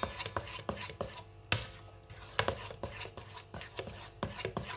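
Pancake batter being stirred in a stainless steel mixing bowl, the utensil knocking against the bowl's sides in quick, irregular taps, with a couple of louder knocks.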